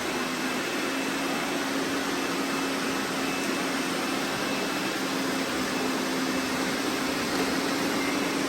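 Several robot vacuum cleaners running at once: a steady whirring hiss with a low, even hum underneath.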